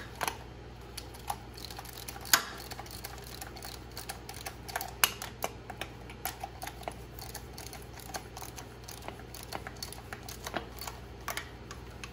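Hand socket ratchet clicking in short, uneven runs while tightening the mounting bolts of a mechanical fuel pump, with a few sharper metal knocks of the tool against the bolts.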